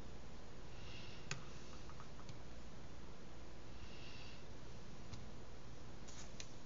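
A few sharp, isolated computer mouse clicks over a steady low microphone hiss, with two short soft hisses between them.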